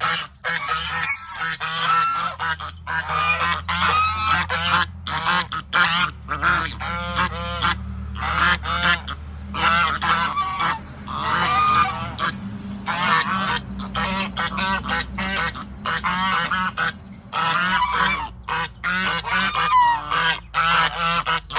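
Domestic geese honking noisily, one call after another with hardly a pause.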